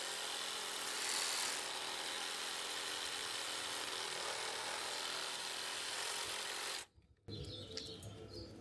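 Power saw running steadily as it cuts through ivy stems, stopping suddenly about seven seconds in.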